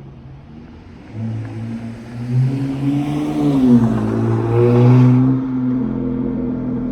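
Charger GT's exhaust through Flowmaster 40 dual mufflers under a hard pull: the note rises from about a second in, dips briefly near the middle at the shift from first to second gear, peaks about five seconds in, then eases to a steady drone.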